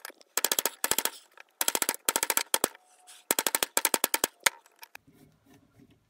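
Impact driver hammering at a rusted screw in a steel vise jaw: several short bursts of rapid impacts with brief pauses between them, stopping about four and a half seconds in.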